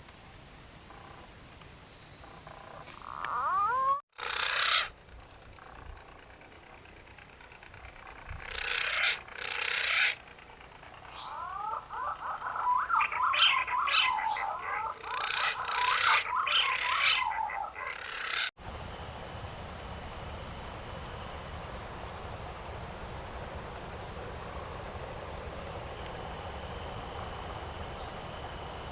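Birds giving quick warbling whistles, mixed with loud bursts of rustling or wing flapping, in three clumps over the first half. After an abrupt cut there is a steady forest background with high, even insect trilling.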